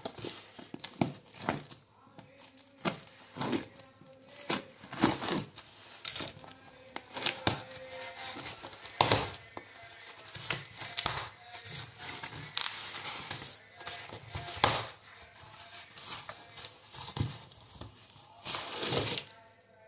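Cardboard box being unpacked by hand: packing tape ripping and peeling, with cardboard and plastic wrap rustling and crinkling in irregular bursts.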